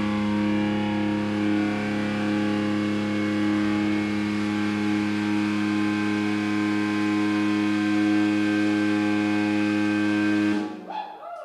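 Electric guitar amplifier feedback: a steady drone of several held tones ringing out of the amps with no one playing, cutting off suddenly near the end as the gear is switched off.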